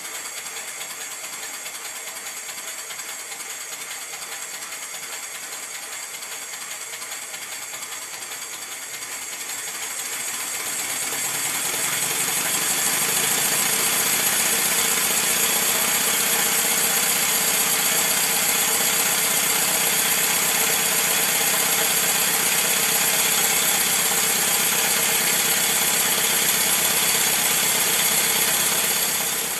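Stuart Score twin-cylinder model steam engine running on compressed air: a rapid, even beat of exhaust hiss and rod clatter that grows louder as the engine speeds up about ten seconds in, then holds steady until it cuts off at the end.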